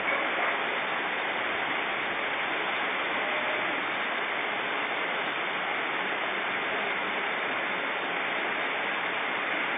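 Steady rush of a swollen, flooding river: fast brown floodwater pouring past at a constant level.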